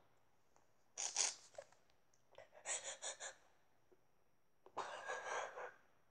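A girl crying without words: sharp sniffling and gasping breaths, one about a second in, three quick sniffs around three seconds, and a longer breath near the end.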